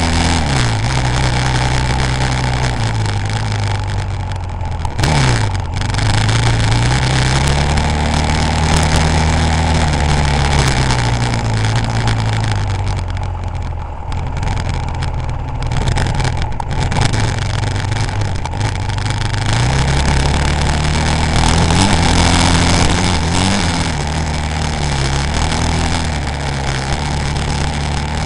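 Off-road motorcycle engine heard on board, running under load, its pitch rising and falling again and again as the throttle opens and closes and gears change, over a steady rushing noise.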